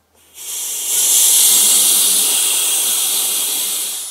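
Compressed air hissing out of a tubeless tyre booster tank charged to about 40 psi as its valve is opened into the Headshok cartridge. The hiss starts about a third of a second in, is loudest around a second in, and slowly fades as the tank empties.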